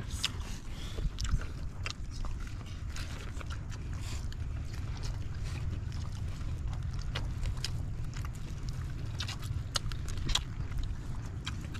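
Steady low rumble with scattered light clicks and taps as people eat with their hands from plates and bowls.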